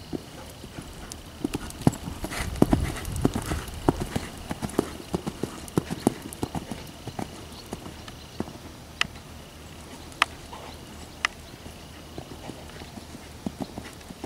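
Hoofbeats of a warmblood-cross horse cantering on sand arena footing: an uneven run of dull thumps, heaviest about two to four seconds in.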